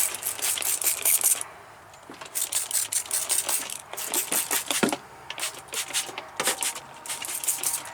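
Rapid, scratchy back-and-forth scrubbing on the bare sheet-metal floor of a car being cleaned back to metal, coming in several quick bouts with short pauses between them.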